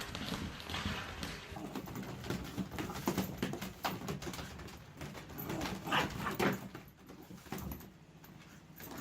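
A dog making a series of short sounds, the loudest around six seconds in.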